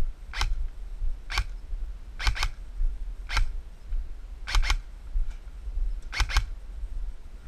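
Sharp snapping clicks of airsoft guns firing, nine shots in all, some single and some as quick double taps, spaced about a second apart, over a steady low rumble.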